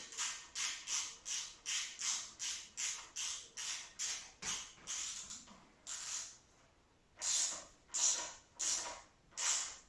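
Ratchet of a torque wrench being worked back and forth on the stem bolts, each stroke a short rasp of clicks, about two strokes a second. The strokes pause for about a second past the middle, then four more follow.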